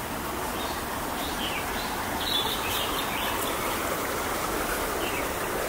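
Steady rushing noise with a few short bird chirps over it.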